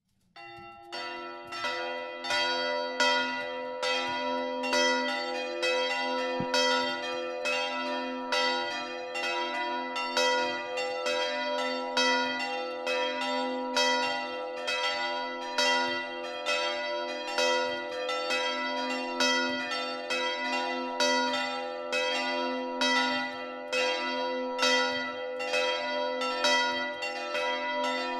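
Several church bells ringing together in a full peal, their strikes overlapping in an even, steady rhythm. The ringing starts from silence at the very beginning and builds within the first second or two.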